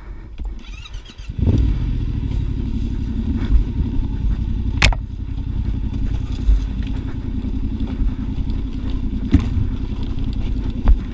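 Yamaha Ténéré 700 World Raid's parallel-twin engine running steadily as the bike is ridden along a trail. It picks up about a second and a half in. There is a sharp click about five seconds in.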